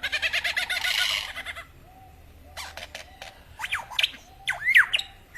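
Lyrebird singing a mimicry sequence: a fast buzzy rattle for the first second and a half, then scattered clicks and quick swooping whistles that rise and fall in pitch toward the end.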